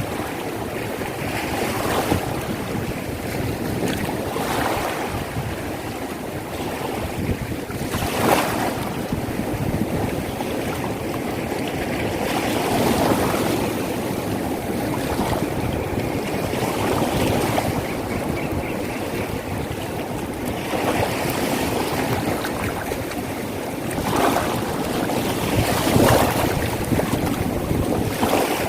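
Small waves washing onto a sandy beach, the surf swelling and falling back, with wind buffeting the microphone now and then.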